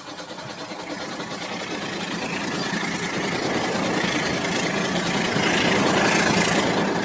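Two toy trains running on plastic track: a steady whirring of small motors and gears with a fine rapid clatter of wheels, growing louder as they approach and pass close by, loudest about six seconds in.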